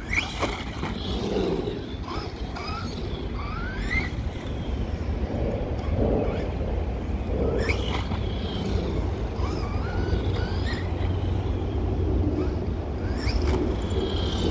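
Brushless electric motor of a JLB Racing Cheetah RC truck whining in short rising bursts as the throttle is blipped, a handful of times, over a steady low rumble.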